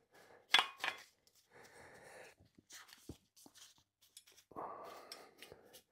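Workbench handling sounds: two sharp knocks about half a second apart near the start, then stretches of rustling, rubbing noise with a dull low thump in between.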